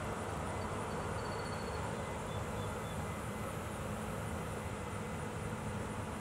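Steady outdoor background noise, a low rumble with hiss, unchanging throughout, with a few faint short high chirps about a second in and again near three seconds.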